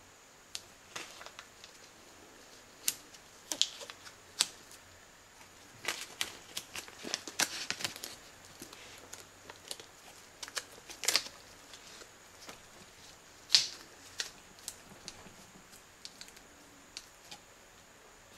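Blue painter's tape being pulled off the roll and wrapped on by nitrile-gloved hands: scattered sharp ticks and crackles of the tape peeling and sticking, with a busier crinkling stretch about six to eight seconds in and a few louder snaps later.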